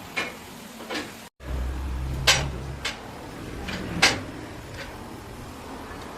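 Workshop handling noises: a series of short knocks and clanks, about seven in all, the loudest about two and four seconds in, with a brief low hum after a sudden cut about a second in.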